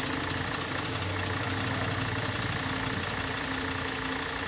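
A machine running steadily in the background, a low hum with a hiss over it.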